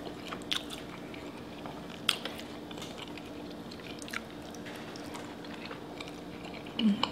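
Close-miked eating sounds of fettuccine alfredo: chewing with a few sharp wet mouth clicks and smacks, then a short low "mm" near the end as a forkful of pasta goes into the mouth.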